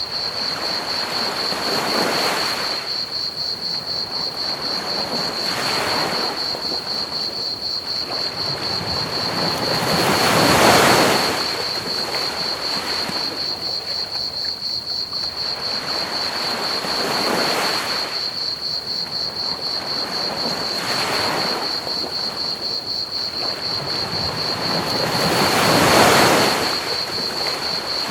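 Ocean waves washing onto a beach, swelling and falling away every few seconds, with the biggest about ten seconds in and near the end. Under them runs a steady hiss of pink noise and a continuous high, rapidly pulsing cricket chirp.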